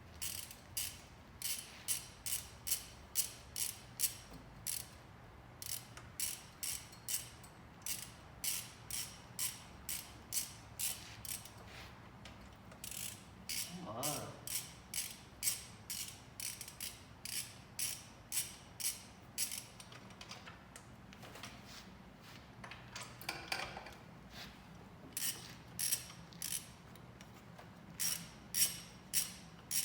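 Hand ratchet clicking in runs of about two strokes a second, with short pauses between runs, as it turns a 5/8-inch deep spark plug socket to back a spark plug out of a four-cylinder engine.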